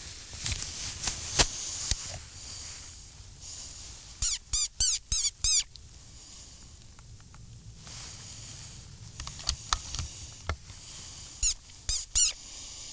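Two bursts of loud, high-pitched, wavering squeaks: five quick squeaks about four seconds in, then three more near the end. A few soft clicks fall between them.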